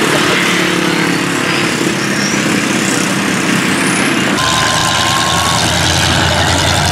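Lifted pickup truck engines running loud. About four seconds in the sound cuts abruptly to a deeper, heavier engine rumble.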